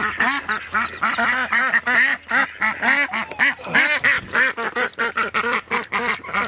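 Adult ducks quacking rapidly and without a break, about four quacks a second, as their ducklings are handled. In the last second or so a duckling peeps in short high notes.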